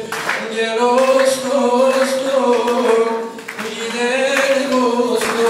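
Loud live music: a held, slowly wavering melody line in long notes, with occasional sharp percussive hits.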